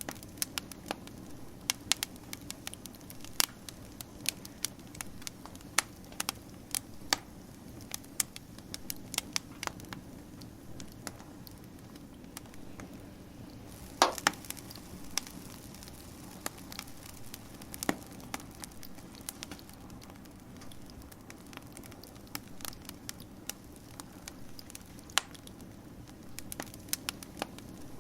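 Wood fire crackling: irregular sharp pops and snaps, a few each second, over a low steady rumble of burning, with one louder pop about halfway through.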